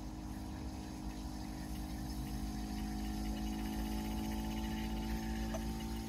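Electronic refrigerant leak detector ticking rapidly and faintly at a high pitch over a steady low hum. The fast ticking is the detector sensing refrigerant at a leak.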